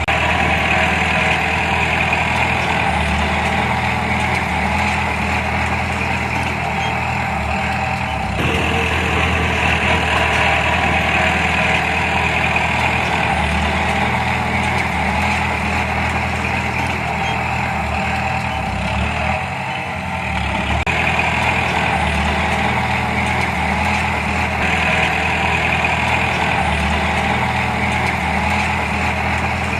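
Heavy diesel engine of earthmoving machinery running steadily under varying load, with brief dips and changes in pitch about 8 and 20 seconds in.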